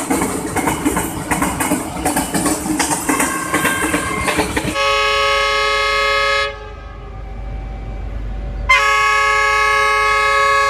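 A train of tank wagons rolling past with its wheels clattering on the rails. Then a diesel locomotive sounds its multi-tone horn in two long blasts: the first about four and a half seconds in and lasting about two seconds, the second about four seconds later. A low engine rumble runs between them.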